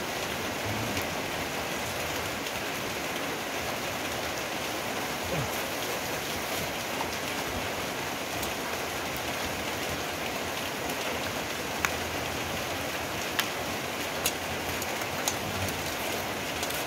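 Steady rain falling, an even continuous hiss, with a few sharp taps in the last few seconds.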